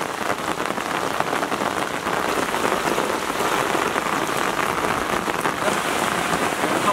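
Steady rain falling on flooded ground and standing floodwater, a dense, even patter of drops.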